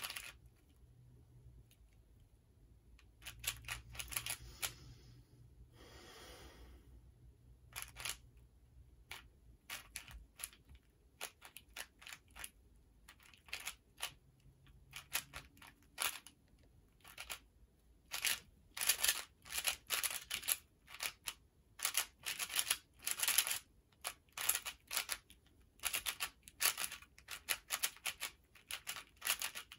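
Plastic speedcubing puzzle being turned fast: quick clicks of the layers snapping round, scattered at first, then coming in dense rapid flurries over the second half, with a brief rustle about six seconds in.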